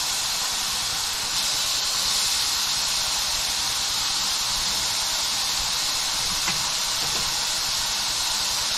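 Raw chicken strips and mushrooms sizzling in butter in a hot frying pan: a steady frying hiss as the chicken starts to brown.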